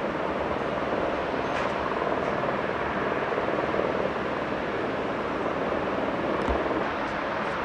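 Steady rushing noise of a cruise ship under way, heard from its open deck, with a low hum beneath.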